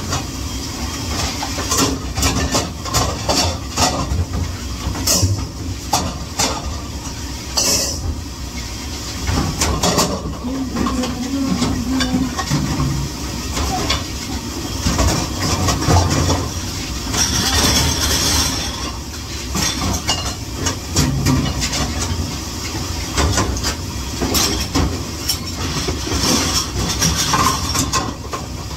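Steady running noise of a kitchen dishwashing area, a low machine rumble and hiss, with dishes clattering again and again.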